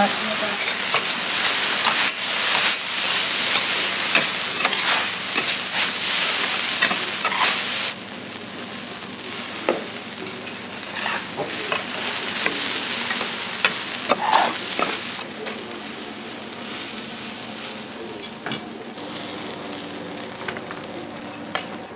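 Sauce sizzling hard on a hot teppan iron griddle over frying noodles and rice, with metal spatulas scraping and tapping on the plate. The sizzle drops off sharply about eight seconds in, leaving a quieter sizzle and scattered spatula scrapes and clicks.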